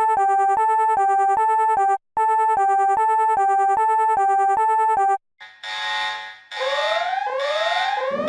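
Electronic emergency alert tone: a synthesized two-note pattern stepping between a higher and a lower note about three times a second, with a short break partway. About five seconds in it stops and a repeating rising electronic siren wail begins, each sweep under a second long.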